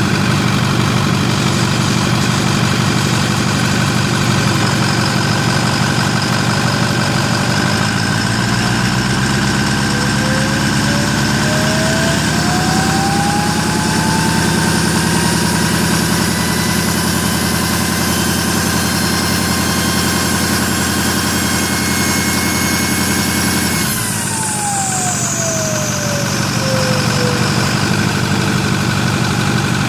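A 6.4-litre Power Stroke turbo-diesel V8 is run up from idle about eight seconds in and held. A whine climbs in pitch and holds, then falls away as the revs drop back at about 24 seconds. This is the loud noise the owner reports from an engine that is making no boost.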